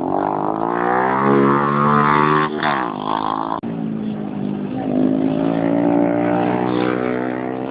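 Racing motorcycle engines running at high revs, their pitch climbing as they accelerate and dropping as they back off. The sound breaks off abruptly a little over three seconds in and picks up again, rising once more.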